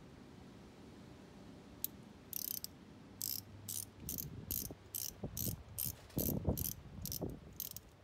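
Ratchet wrench clicking in short repeated strokes, about three a second, starting about two seconds in, as a new spark plug is run down into the cylinder head.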